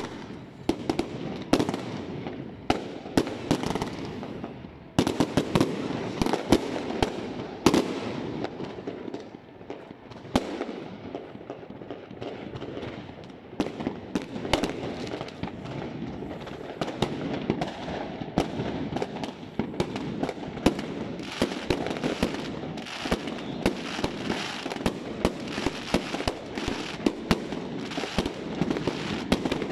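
Aerial fireworks bursting overhead in a dense, continuous barrage: many sharp bangs and cracks in quick succession over a constant background din of further explosions.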